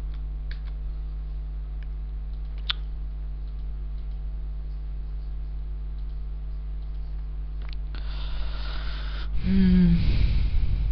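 Steady electrical mains hum on the recording, with a few faint clicks. Near the end comes a breathy rush of noise, then a short voiced sound from the speaker without words.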